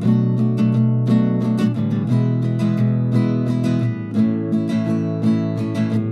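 Acoustic guitar music, picked and strummed in a steady rhythm.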